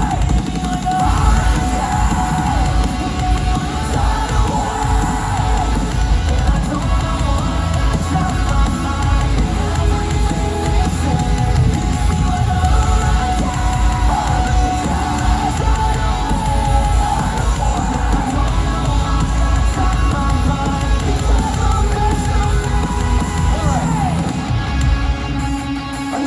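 Metalcore band playing loud live through an arena sound system: pounding drums, heavy bass and distorted guitars, with yelling over the top.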